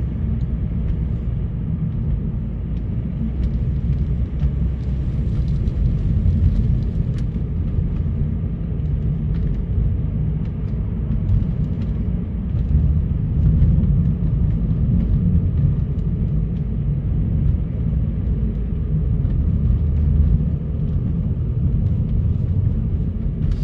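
A car driving on a snowy, slippery road: the engine and tyres make a steady low rumble.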